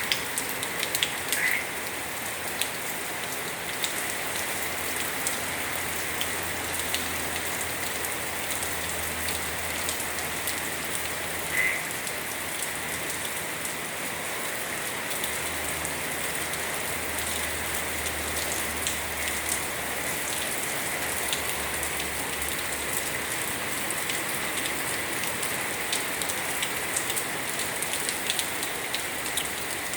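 Fairly heavy rain falling steadily, a constant hiss with individual drops tapping.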